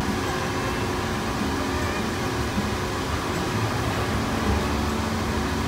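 Steady running noise of a fishing trawler's deck machinery, with a faint constant mechanical hum.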